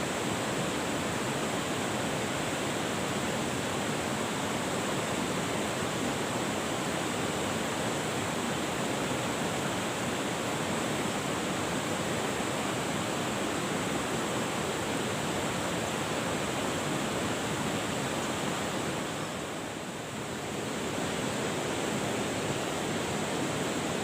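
Steady rush of flowing river water, easing briefly about twenty seconds in.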